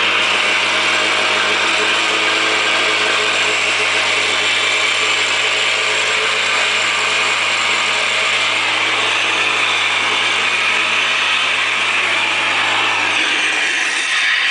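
Arctic Cat Tigershark Daytona 770 jet ski's two-stroke twin engine running steadily with a rattly mechanical clatter; its note changes a little near the end.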